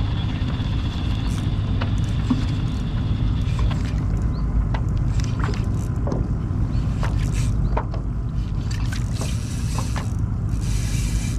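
Steady low rumble of wind and water around a fishing kayak on open water, with scattered light clicks and taps.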